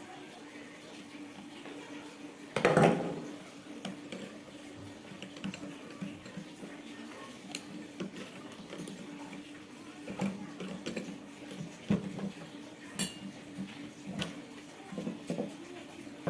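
Metal tools and Stihl 382 chainsaw parts clinking and knocking during hand disassembly, with one loud knock about two and a half seconds in and scattered lighter clicks after. A faint steady hum runs underneath.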